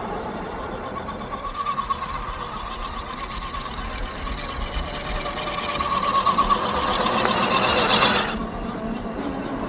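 Brushed 540-size electric motor and gearbox of an RC crawler whining under throttle. The whine wavers, grows louder and a little higher about five to eight seconds in, then cuts off suddenly as the throttle comes off.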